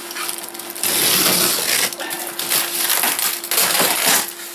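Packing tape and plastic wrapping ripped and peeled off a cardboard box, in about three long rasping tears.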